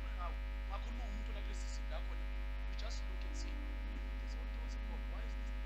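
Steady low electrical hum with a ladder of overtones, the loudest thing throughout. Faint, scattered voices murmur underneath.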